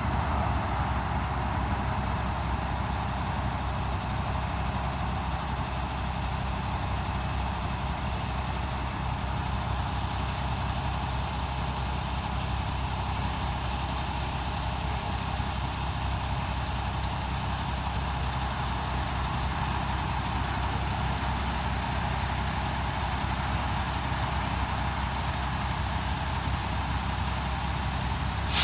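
Steady road traffic noise, a continuous rumble of passing vehicles, with a short sharp click at the end.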